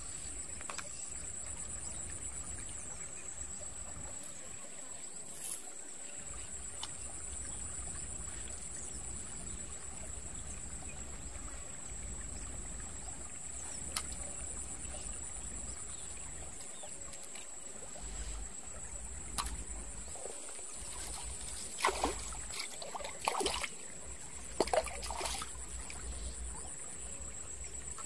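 Steady trickle of a shallow stream under a constant high-pitched whine. About 22 seconds in come a few sharp splashes over some four seconds as a small hooked tilapia thrashes and is pulled from the water.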